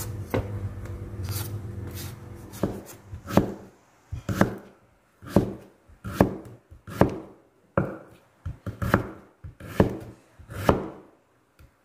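Kitchen knife slicing young mango into thin strips on a wooden cutting board: a series of chops, about one a second, each stroke ending as the blade strikes the board. The first couple of seconds hold only a low steady hum before the chopping begins.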